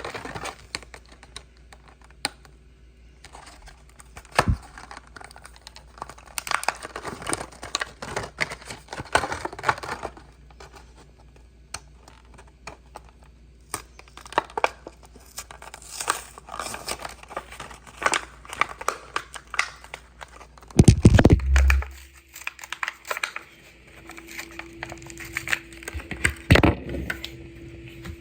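Plastic blister and cardboard packaging of a Hot Wheels car being torn and pried open by hand: irregular crinkling, crackling and tearing, with one louder thump about three-quarters of the way through.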